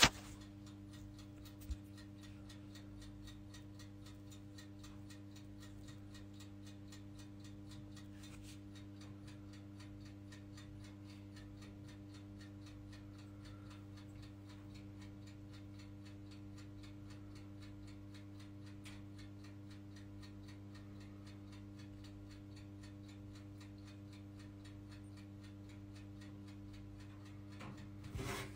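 Steady low electrical hum with a fast, even ticking running over it. There is one short knock about two seconds in.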